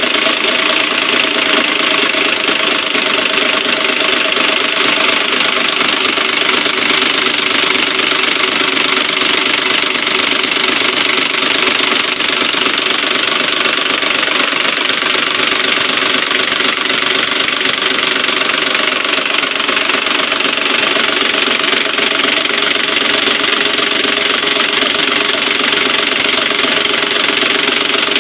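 Homemade six-cylinder compressed-air engine with a push-pull slider valve running steadily on shop air: a dense hiss of exhausting air over a steady mechanical rattle. The outer ring is still making contact with the pistons the whole time it runs.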